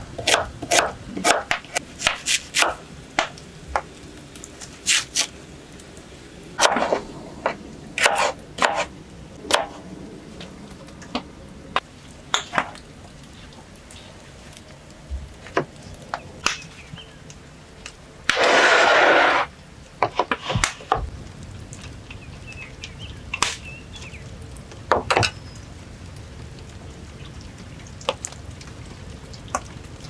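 Kitchen knife slicing carrots on a wooden cutting board: a run of sharp knocks through the first ten seconds. Scattered knocks and clinks follow as food is set out on wooden boards and plates, with one brief rushing noise, about a second and a half long, a little past the middle.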